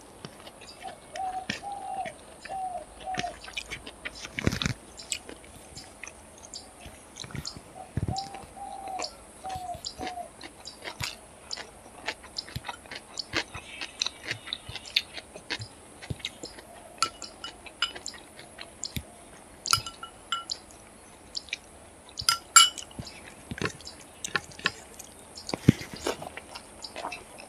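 Eating rice by hand: fingers mixing and scooping rice and curry on a ceramic plate, with many small clicks, clinks and chewing sounds. Two dull thumps come about four and eight seconds in, and twice a bird calls in a short series of chirping notes.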